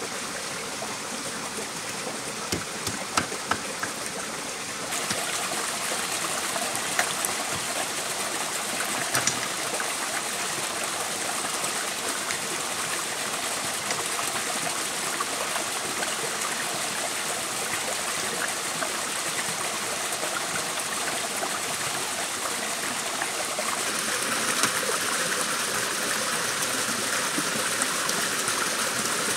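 Steady rush of a small forest waterfall and stream, a little louder from about five seconds in, with a few sharp knocks of a knife on a wooden chopping board.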